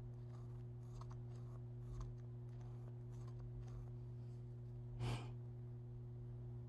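Faint scratching of a pen tip drawing short strokes on carved wood, over a steady low hum. About five seconds in, a short louder exhale.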